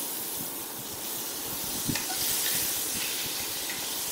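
Slices of raw green mango sizzling in hot oil in a kadai: a steady hiss, with a small knock about two seconds in. A wooden spatula starts stirring them near the end.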